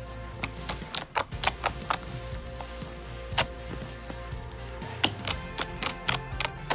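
Fingers poking and squeezing thick, soft slime, making sharp, irregular clicks and pops as air pockets in it burst, several in quick runs about a second in and again about five seconds in. Faint background music runs underneath.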